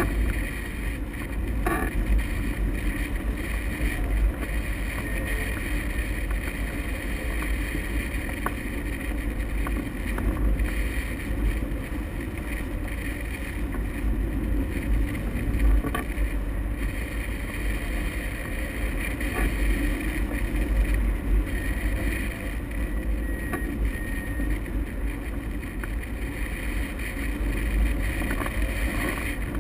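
Steady rush of airflow over a hang glider in flight, buffeting the microphone of a camera mounted on the glider, with a deep rumble that swells and eases slightly.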